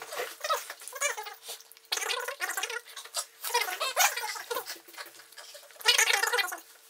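A person's hard, hissing breaths, sniffs and mouth noises in irregular bursts as his mouth burns from very hot chili pizza, with a blow of the nose into a tissue about four seconds in.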